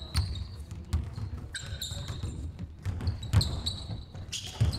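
Basketball being dribbled on a wooden gym floor, a run of uneven thuds, with short high squeaks of basketball shoes on the floor in between.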